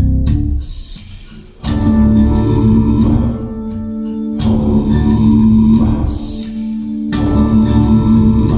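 Recorded music with guitar and deep bass played through KEF Blade floor-standing loudspeakers. New notes strike about every three seconds and ring on.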